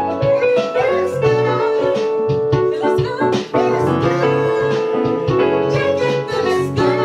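Piano-led music playing, with held chords and a steady run of notes.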